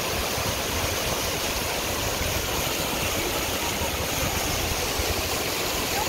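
Steady rush of moving water from a small waterfall splashing into its pool and the fast-flowing Crișul Repede river, an even hiss with no breaks.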